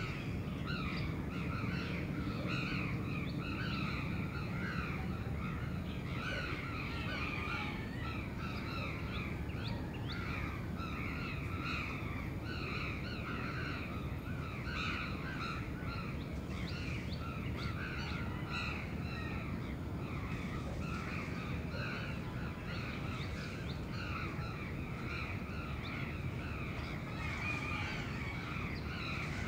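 A crowd of crows cawing over and over, their calls overlapping continuously, over a steady low city rumble.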